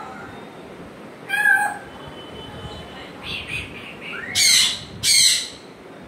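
African grey parrot calling: a short call about a second in, two quieter short sounds around the middle, then two loud calls in quick succession near the end.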